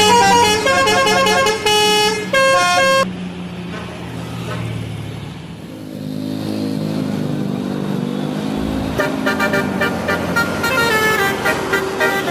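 Bus telolet horn, a set of electric multi-tone horns, playing a quick tune of stepped notes that stops about three seconds in. A bus engine runs for several seconds with its pitch rising and then falling. About nine seconds in, another telolet horn tune starts.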